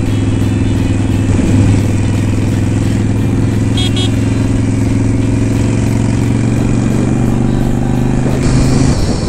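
Motorcycle engine running at a steady cruise under wind noise, heard from the rider's own bike. There is a brief faint high beep about four seconds in, and the steady engine note breaks off near the end.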